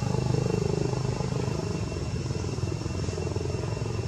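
An engine running with a fast, even low throb that eases slightly after the first second, with a thin steady high tone above it.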